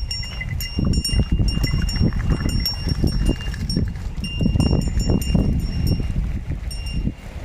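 Village ambience: small bells clinking again and again, with a short pause about four seconds in, over a steady low rumble of wind on the microphone.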